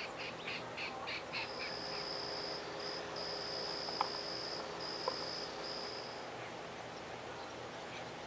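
Insect trilling outdoors: a steady high-pitched buzz that starts about a second and a half in, breaks briefly a few times, and stops about six seconds in. Before it come short high chirps at about three a second, and two faint clicks fall in the middle.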